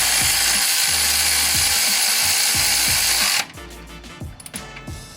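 Cordless electric ratchet (Milwaukee M12 Fuel 3/8") running steadily for about three and a half seconds as it drives in a bolt holding the belt tensioner, then stopping suddenly. Light clicks and knocks follow.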